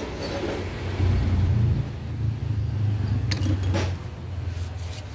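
Low, steady rumble of a motor vehicle engine running, strongest from about a second in. A few sharp metal clicks come past the middle as the turbocharger's parts are pulled apart and handled.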